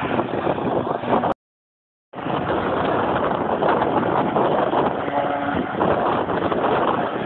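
A race car passing at speed, its engine noise mixed with heavy wind noise on the microphone. The sound cuts out completely for under a second just over a second in, then wind noise and faint engine sound carry on.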